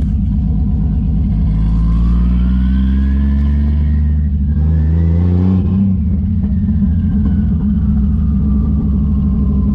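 Turbocharged Toyota 1JZ inline-six with an open-dump wastegate accelerating, the revs climbing, breaking briefly about four seconds in, climbing again, then holding steady. A thin turbo whistle rises with the revs and slowly falls away over the last few seconds.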